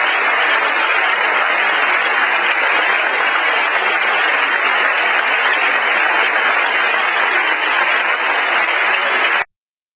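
Large theatre audience applauding, a dense, steady clapping that cuts off abruptly near the end.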